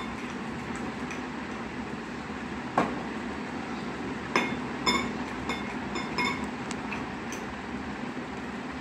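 Light clinks of a spoon and small glass bowls as salad ingredients are mixed and handled, about half a dozen between three and six and a half seconds in, some with a short glassy ring, over a steady background hiss.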